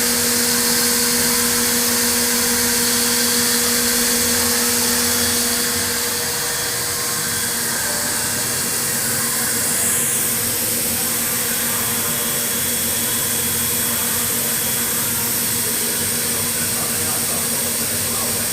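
Five-axis CNC milling machine milling an electrode: a steady, hissing machine noise with a low hum. Part of the hum stops about five and a half seconds in.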